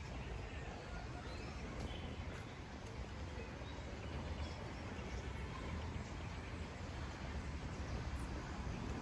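Quiet outdoor park ambience: a steady low rumble with a few faint, short bird chirps about two seconds in.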